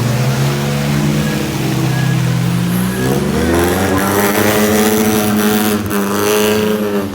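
Off-road car engine running steadily, then revved up and down several times from about three seconds in.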